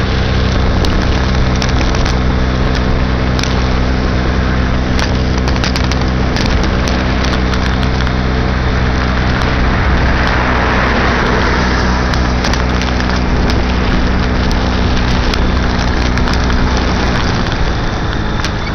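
Baja SC50 moped engine running steadily at cruising speed, with wind and road noise rushing over the microphone and frequent crackling clicks. The steady engine note drops away near the end.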